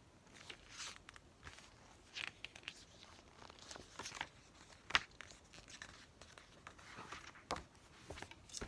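Pages of a glossy photo book turned by hand: soft, scattered paper swishes, with two sharp taps about halfway through and near the end.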